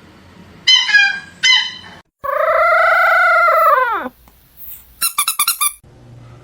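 Animal calls: three short calls falling in pitch, then one long loud call that swells and falls away at its end. Near the end comes a quick run of high clicks.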